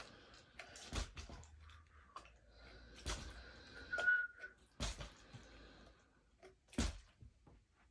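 Plastic water bottle being flipped and landing again and again: four sharp thuds about two seconds apart, with a short high tone just after the second.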